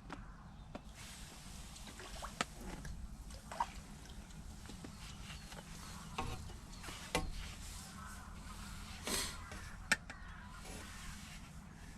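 Water splashing and dripping as a hooked carp is played on a pole, with scattered sharp knocks and clicks from the pole being handled, over a low steady rumble.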